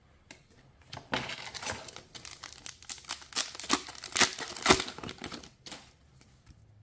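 Foil wrapper of a MetaZoo Native booster pack being torn open and crinkled: a dense run of irregular crackling starting about a second in and stopping shortly before the end, with one sharp crack near the five-second mark.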